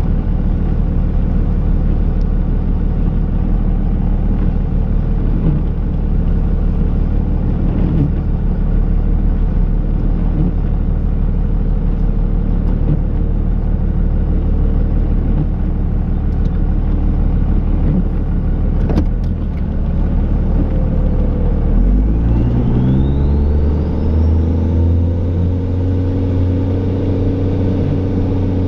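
Dodge Ram's Cummins turbo-diesel engine running steadily at low revs, then revving up about two-thirds of the way through and holding at higher revs. There is a sharp knock shortly before the rev-up.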